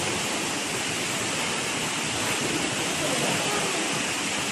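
Steady rushing of water, with no sudden sounds.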